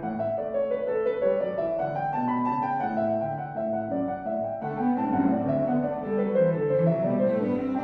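Background music: a piano playing a slow classical-style melody, one note after another.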